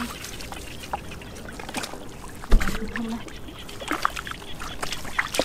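Shallow muddy water splashing and sloshing as stranded fish are scooped out by hand and with a wire basket, with many small scattered splashes. A dull thump about two and a half seconds in is the loudest sound, followed by a brief voice.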